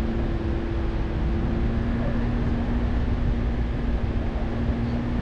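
Chevrolet Colorado ZR2 Bison pickup driving on soft beach sand: steady engine and tyre noise with a low rumble and an even hum. A second, higher hum drops out about two seconds in.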